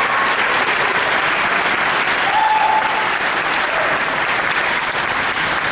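Large audience applauding, loud and steady, with a couple of short cries from the crowd over it.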